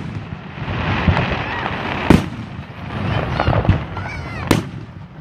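Aerial fireworks display: a spell of crackling from bursting shells, then two sharp bangs, about two seconds in and about four and a half seconds in.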